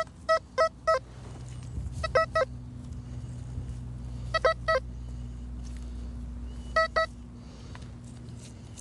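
XP Gold Maxx Power metal detector giving its target signal: short beeps at one steady mid pitch, in quick groups of two or three about every two seconds, as the coil passes over the dug spot. It is the response to a lead musket ball in the loosened soil.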